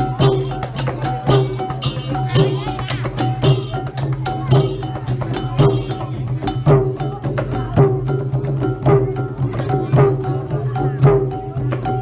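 Cambodian chhay yam music: a steady beat of drums and other percussion under a repeating pitched melody. The sharp high percussion strikes stop about halfway through, and the drums and melody carry on.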